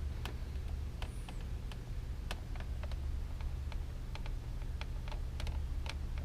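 Light, irregular clicks and ticks, more than a dozen unevenly spaced, over a steady low hum.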